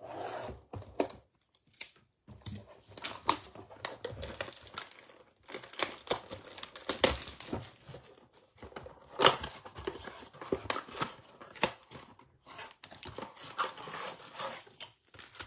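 Plastic shrink wrap torn and crinkled off a baseball card blaster box as the box is opened and its foil packs handled: irregular crackles and snaps.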